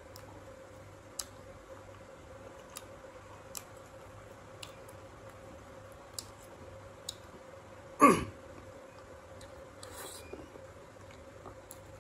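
A person eating fruit: faint, sharp mouth clicks and smacks about once a second over a low steady hum. About eight seconds in comes one loud, short mouth or throat sound that drops quickly in pitch, followed two seconds later by a softer breathy noise.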